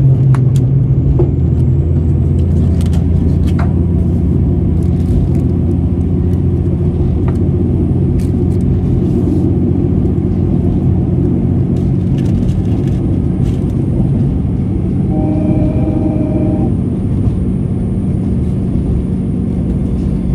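Steady low rumble of a moving diesel railcar heard from inside the cabin: the KiRo 47 tourist car's engine and wheels running, with scattered light clicks and a brief pitched tone about 15 seconds in.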